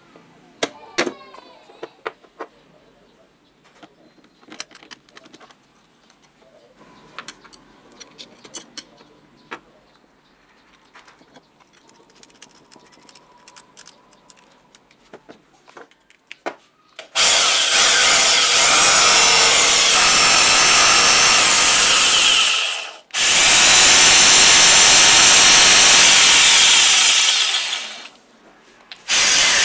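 Light clicks and taps of small metal parts being fitted and screwed by hand, then, a little over halfway in, a Hitachi CJ60V electric jig saw starts and runs loudly for about five seconds, its motor working again after restoration. It stops briefly, runs about five seconds more, and starts a third time near the end.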